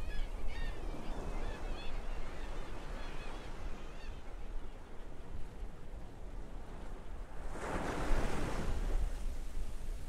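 Seagulls calling repeatedly over steady surf for the first few seconds. About seven and a half seconds in, a wave breaks and washes up the beach.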